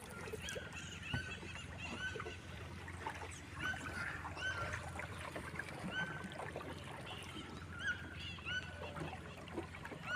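A chorus of wild animals chirping: many short, arched calls repeated several times a second, over a low steady hum.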